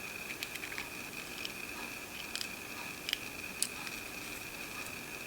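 Small replacement humidifier fan motor spinning on battery power with a steady high whine, showing that the new motor works. Scattered light clicks and taps of the wires being handled sound over it.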